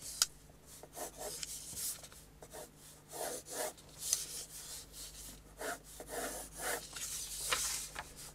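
Graphite pencil drawing straight lines on paper: a run of short, scratchy strokes, one after another.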